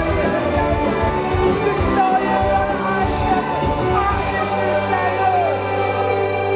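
Loud rock-styled music with a singing voice over it. The drum beat stops about four seconds in, leaving a held chord under a falling sung note.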